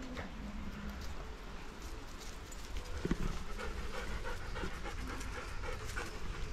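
A German Shorthaired Pointer panting hard at close range, with scattered small clicks and crunches of feet on dry leaf litter.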